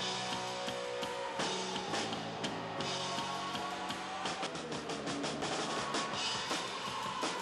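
Rock band playing live: a drum kit struck with steady hits over sustained guitar chords.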